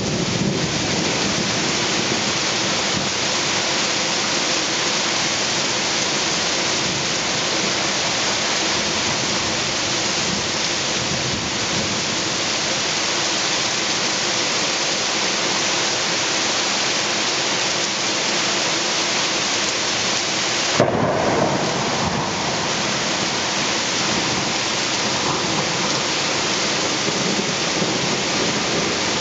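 Heavy thunderstorm rain pouring steadily, with one sharp crack of thunder about two-thirds of the way through, followed by a short rumble.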